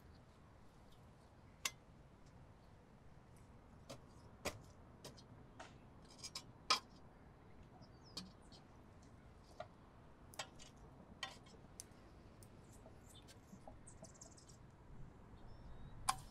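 Small wood campfire crackling: sparse, irregular sharp pops and snaps, the loudest a little under halfway through and near the end, over a faint low rumble.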